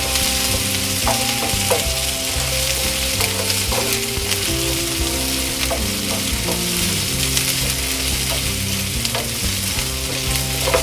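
Chopped onion and ginger-garlic-green chilli paste sizzling in hot mustard oil in a nonstick frying pan, stirred and pushed around with a wooden spatula as they brown.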